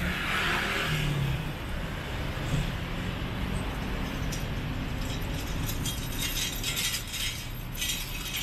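Street traffic: cars and motorbikes running past on the road, a steady low rumble with engine notes rising in the first few seconds. Short crisp ticks come through over the last few seconds.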